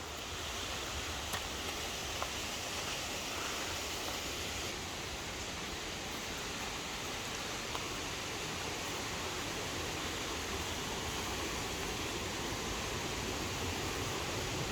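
Steady rush of a waterfall and its stream, an even unbroken noise with a few faint ticks.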